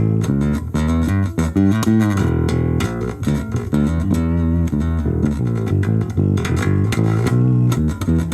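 Charvel four-string P-bass-type electric bass played through a VOX Soundbox Mini amp: a busy run of plucked notes changing pitch several times a second, each starting sharply.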